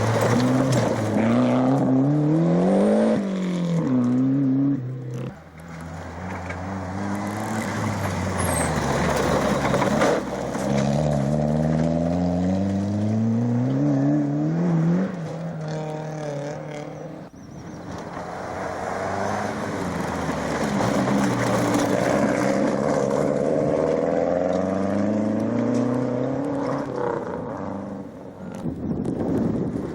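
Rally car engines at full throttle on a special stage, the pitch climbing and dropping back again and again as the drivers change gear. About three cars pass in turn, with brief dips between them.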